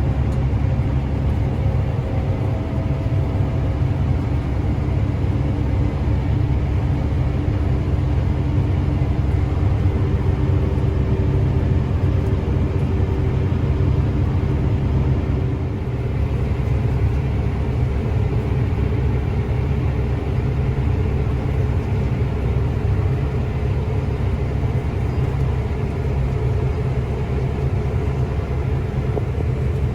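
Combine harvester running steadily: a low, even mechanical rumble with a faint steady hum over it.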